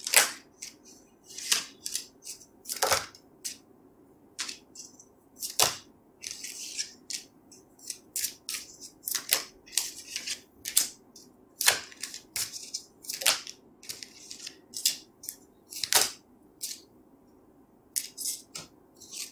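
A deck of tarot cards shuffled by hand, an irregular run of sharp card slaps and flicks. Near the end a card is laid down onto the table.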